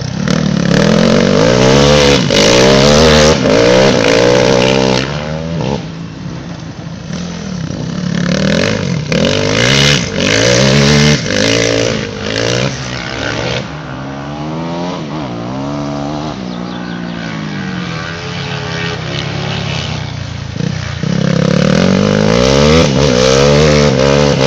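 Racing quad bike (ATV) engines revving hard, the pitch repeatedly climbing and dropping back with the throttle. Loudest in the first five seconds and again from about 21 seconds on, as a quad passes close, more distant in between.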